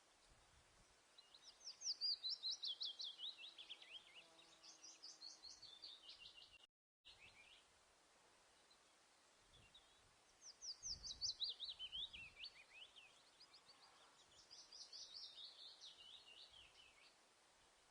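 Birdsong: four phrases, each a rapid run of high, chirping notes that falls in pitch over two to three seconds, over faint background hiss.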